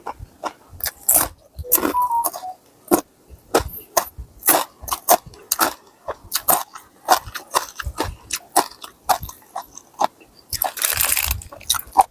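A person chewing crunchy food close to the microphone, with irregular crisp crunches and bites several times a second.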